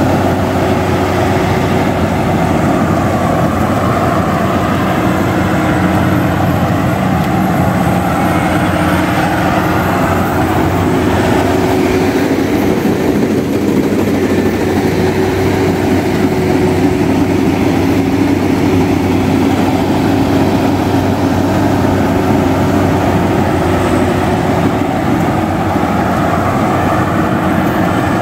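Tracked rice combine harvester running steadily while it cuts paddy, with an even engine hum that holds one pitch.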